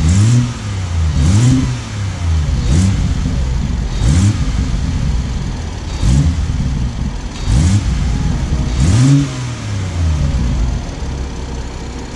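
BMW M140i's 3.0-litre turbocharged straight-six (B58) free-revving with the bonnet open, blipped up and back down about seven times, roughly once every second and a half, then settling to a steady idle near the end. It is revved so that an unexplained engine fault can be heard.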